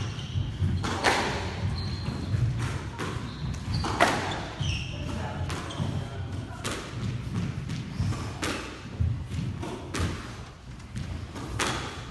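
Court shoes thudding and squeaking on a wooden squash court floor as players run and change direction, with irregular sharp knocks mixed in.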